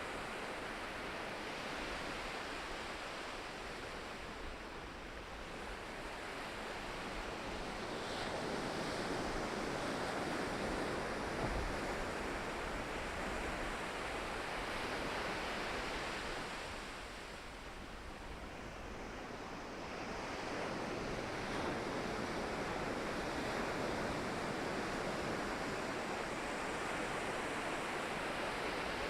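Ocean waves breaking and washing against the shore in a steady surf, swelling and easing in long surges with a lull about two-thirds of the way through.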